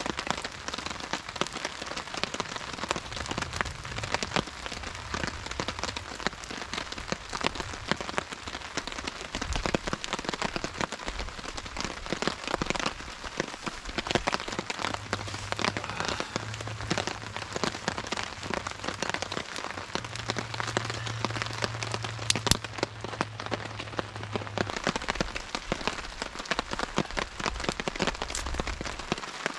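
Steady rain falling on a tarp overhead, a dense spray of small drop hits.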